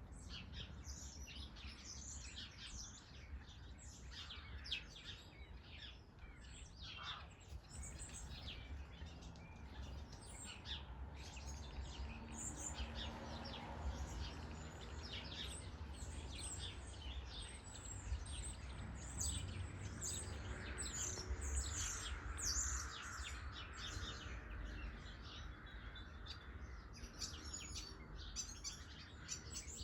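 Small garden birds chirping and calling, many short quick chirps overlapping, over a low steady background rumble.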